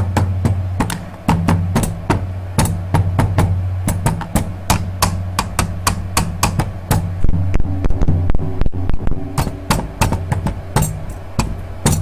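Improvised hand drumming, a batuque: quick, irregular taps and knocks on hard objects, over a steady low hum.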